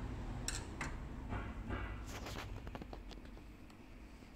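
Several light clicks and taps over a faint low rumble, growing quieter after about two and a half seconds: handling noise of tools and parts during a drone teardown.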